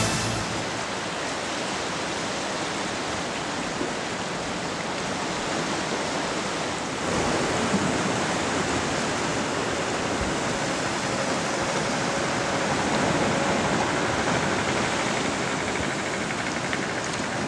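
Sea surf washing against a rocky shore, a steady rush that gets a little louder about seven seconds in.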